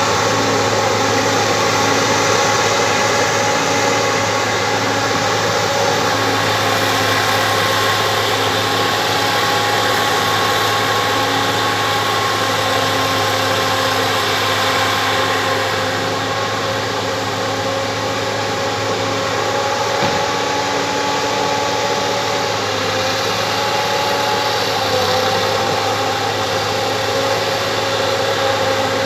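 Bulldozer's diesel engine running steadily, its pitch dipping briefly about three-quarters of the way through.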